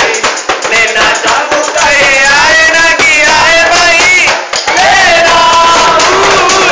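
A group of voices singing together, loud and overlapping.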